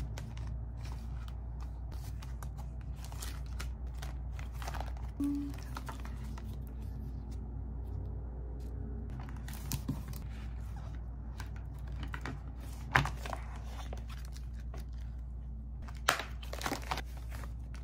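Paper and plastic packaging crinkling and rustling as stationery is handled at a table, with a few sharp taps as items are picked up and set down, over a steady low hum.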